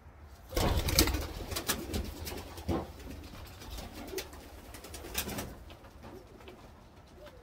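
Domestic pigeons in a loft: a flurry of wing flapping and knocks, loudest about a second in and dying away after five seconds, with pigeons cooing.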